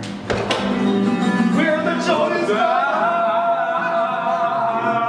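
Music with a singing voice, ending on a long held note.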